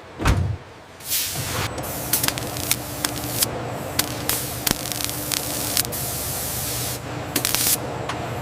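A short low thump, then from about a second in a steady spray-like hiss dotted with sharp clicks. The hiss cuts off near seven seconds, and a brief second burst of hiss follows.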